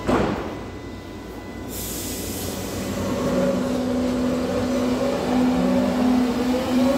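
Berlin U-Bahn H-series train pulling away from the platform. A short loud burst comes right at the start, then the traction motors set up a steady whine that grows louder as the train gathers speed.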